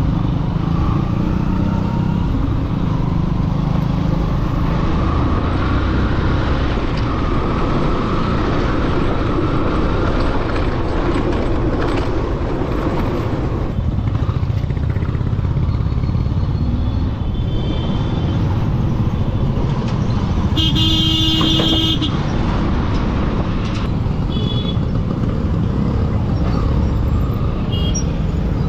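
Road traffic with a heavy, constant low rumble. A vehicle horn sounds for about a second roughly two-thirds of the way in, with several shorter, fainter honks around it.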